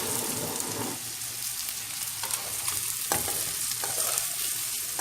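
Boiled egg pieces being stirred with a spatula through sizzling masala in a pan on a low gas flame: a steady frying hiss, with a few sharp clicks of the spatula against the pan.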